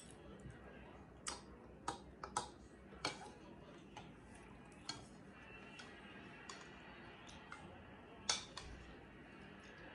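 Metal spoon clinking against a ceramic soup bowl while eating soup: a handful of sharp clinks at uneven intervals, the loudest about eight seconds in.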